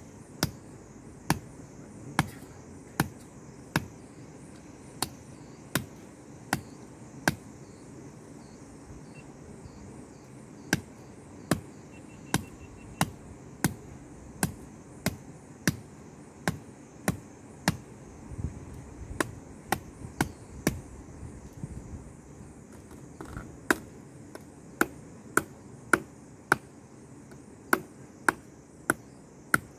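Firewood being chopped with a hand blade: sharp, separate chops into a stick, roughly one every second or less, with a couple of short pauses.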